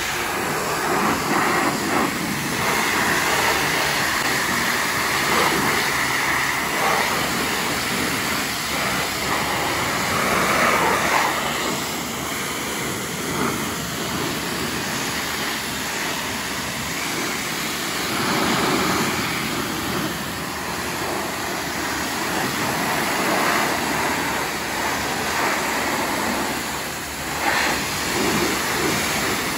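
Pressure-washer wand spraying a quad bike, first foam and then a rinse-water jet: a steady hiss of spray with water splashing off the machine and the wet concrete. It rises and falls a little in loudness.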